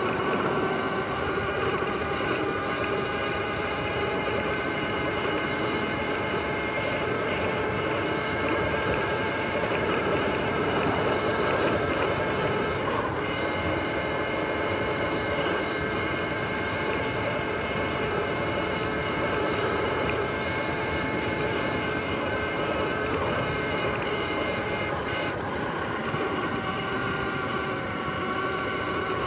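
Sur-Ron X electric dirt bike's motor and drivetrain whining steadily at cruising speed, over the rough rumble of its tyres rolling across grass.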